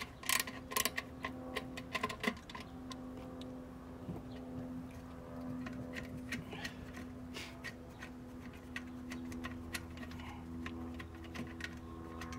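Screwdriver loosening the screw that holds a gas grill's burner tube: a quick run of ratchet-like clicks in the first two seconds, then scattered light metal ticks as the loosened screw is turned out by hand. A faint steady hum runs underneath.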